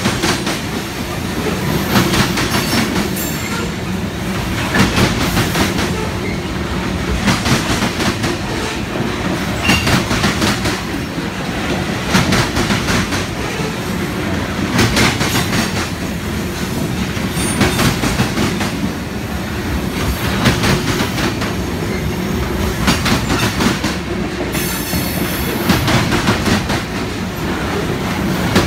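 Covered hopper cars of a Union Pacific grain train rolling past with a steady rumble. The wheels clack in a cluster of beats about every two and a half seconds as each car's wheel sets pass. A brief high wheel squeal comes near the end.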